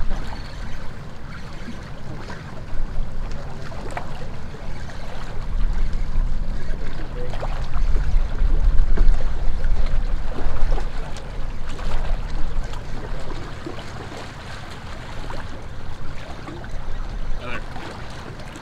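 Wind buffeting the microphone in a low rumble that swells and eases in gusts, over water lapping at the shore.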